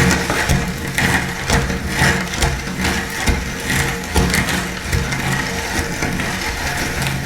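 Electric meat grinder running with a steady motor hum, crunching and crackling unevenly as hard, brittle food is forced through it.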